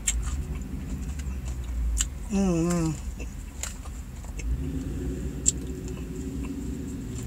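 Eating sounds: a fork clicking against a plastic salad bowl now and then, with a short wavering hummed 'mmm' about two and a half seconds in, over a low steady rumble in the car cabin.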